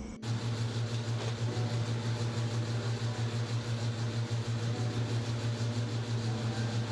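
TIG welder arc running on a steel camber correction bracket being welded to a BMW E30 rear subframe: a steady electrical hum with a constant hiss, pulsing several times a second. It starts suddenly at the cut and runs on evenly.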